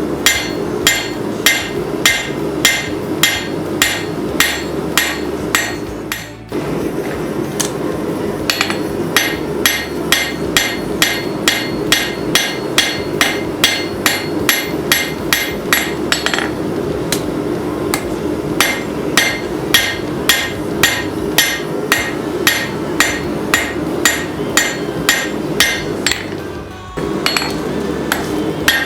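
Hand hammer striking a hot steel wrench on an anvil while forging out a blade, ringing blows at about two a second with two short pauses, over a steady hum.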